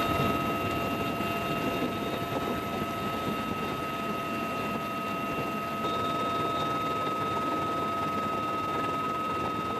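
Military helicopter in flight, heard from inside the cabin at an open door-gun position: a steady rush of rotor and wind noise under a constant high whine of several pitches.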